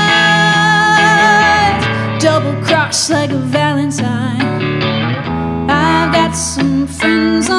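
A woman singing over her own electric guitar in a live rock-blues performance. She holds a long, wavering note at the start, then moves through shorter phrases.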